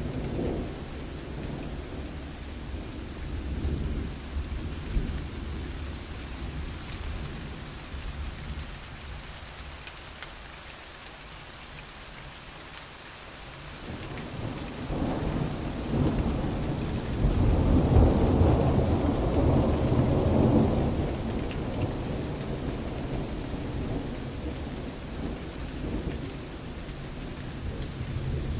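Thunder rumbling on a phone microphone: low rolls early on ease off, then a long rolling peal builds from about halfway, is loudest a few seconds later and slowly dies away.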